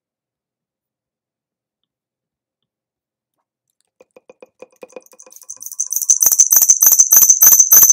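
macOS volume-change feedback pop played over and over in quick succession as the volume keys are pressed. It starts faint about four seconds in and grows much louder as the volume is raised to full.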